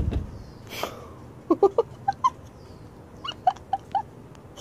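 Kittens play-fighting: a thump at the start, a short hiss about a second in, then about nine short, squeaky kitten mews in two quick clusters.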